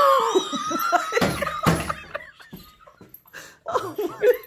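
Several people laughing hard together, including high squealing laughs, with a couple of thumps between one and two seconds in.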